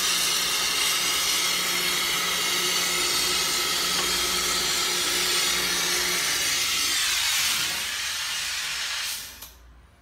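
Jeweler's gas torch flame hissing steadily, with a low machine hum underneath from the casting machine spinning at high speed. The hum stops about seven seconds in, and the torch hiss thins and dies away about two seconds later as the flame is shut off.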